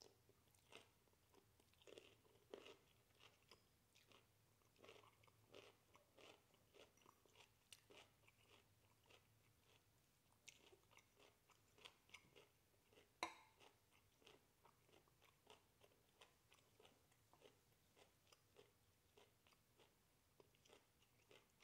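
Faint chewing of cooked broccoli: a steady run of soft crunches a few times a second, with one sharper click about thirteen seconds in.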